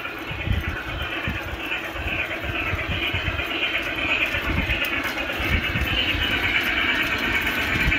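G-scale model articulated steam locomotive in Chessie System livery running along garden railway track, with a steady running noise that grows a little louder as it comes closer.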